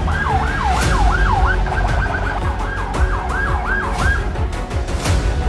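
Police siren in fast yelp mode, sweeping up and down about two and a half times a second over music with a heavy low beat and sharp hits; the siren stops about four seconds in.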